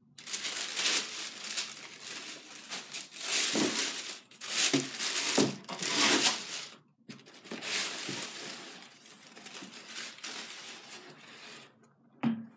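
Tissue paper rustling and crinkling as it is handled and pulled out of a cardboard shoe box, loud and uneven, with a short break about seven seconds in. A short knock near the end.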